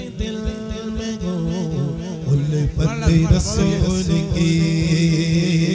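A man singing a naat (Urdu devotional hymn) into a microphone over a PA system, drawing out long, wavering melodic notes.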